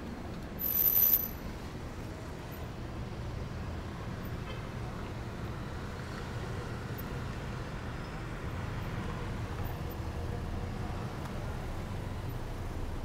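Steady low background rumble of outdoor ambience, with a brief louder hiss about a second in.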